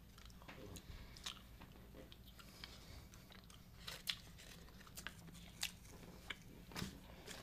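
Faint, scattered crinkles and ticks of paper baking liners being peeled off small soft sponge cakes, then a bite and quiet chewing near the end.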